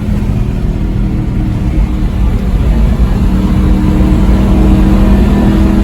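Aston Martin V8 Vantage's naturally aspirated V8 running steadily under way, with a deep rumble and an even engine note that grows a little louder about halfway through.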